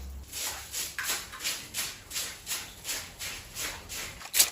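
Knife cutting on a chopping board in a steady rhythm of about three strokes a second, with one louder stroke near the end.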